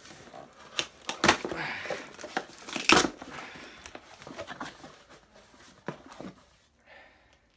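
Cardboard shipping box being torn open by hand: ripping and crinkling of the flaps, with two sharp rips about one and three seconds in, dying away near the end.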